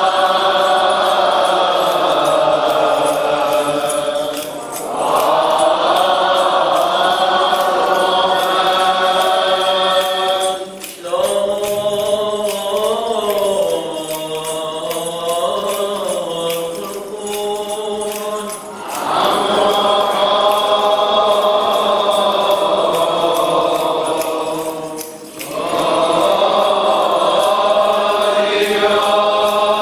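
Syriac liturgical chant: long, held, ornamented vocal phrases of several seconds each, separated by short breaks, with a steady low drone note under much of the second half.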